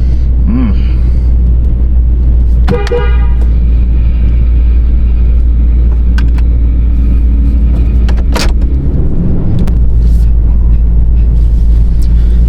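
2015 Toyota Tundra's 4.6-litre V8 running with a steady low drone, heard from inside the cab, now that the crank-no-start truck runs again. A brief pitched tone like a short horn toot sounds about three seconds in.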